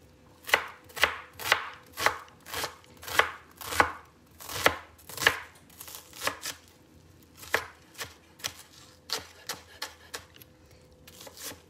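Chef's knife dicing an onion on a plastic cutting board: sharp chops about two a second, heavier in the first half and lighter and more scattered after that.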